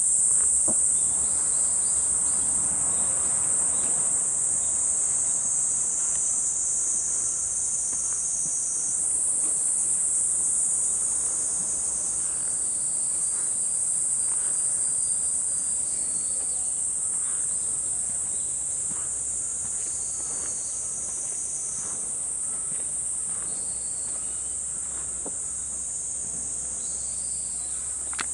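A steady, high-pitched chorus of cicadas droning in the forest, with faint footsteps on the path beneath it.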